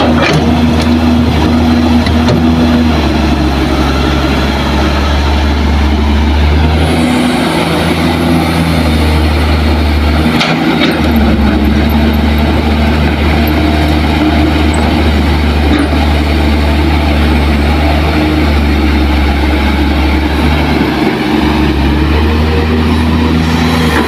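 Kobelco SK200 hydraulic excavator's diesel engine running under load while it digs and loads soil, the engine note shifting up and down with the work. A short burst of noise about ten and a half seconds in.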